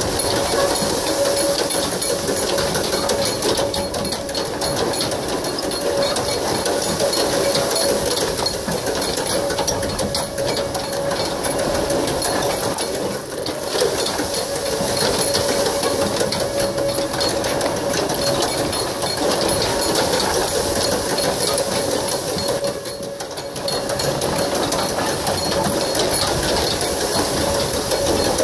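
Fast, continuous mechanical clatter of an ox-driven Persian wheel's wooden gearing, spun hard by a pair of oxen running the circuit, with a steady ringing tone above it.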